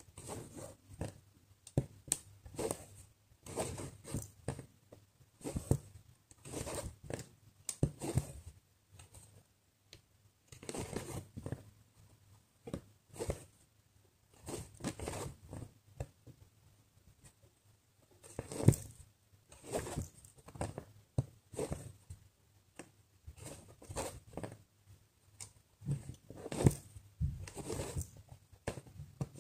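Embroidery floss being drawn through cross-stitch fabric again and again: short scratchy rasps about a second apart, with a few brief pauses and the odd light click of the needle.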